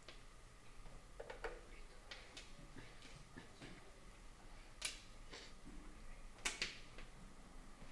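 Shogi pieces clicked down on the board and the digital game clock's button pressed: a scattering of light clicks and taps, the sharpest about five and about six and a half seconds in.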